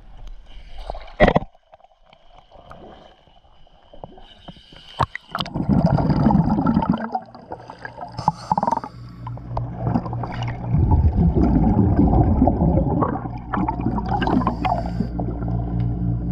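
A camera goes into the water with a splash, then records underwater: muffled bubbling and gurgling surges over a steady low hum.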